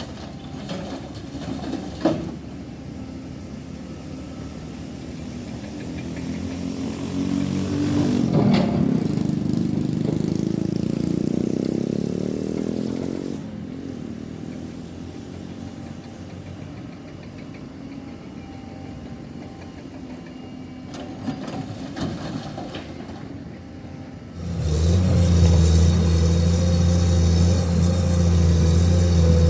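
Heavy diesel engines of dump trucks running at a loading site, with a sharp knock about two seconds in. An engine revs up and falls back in the middle. Near the end a much closer engine comes in loud and steady.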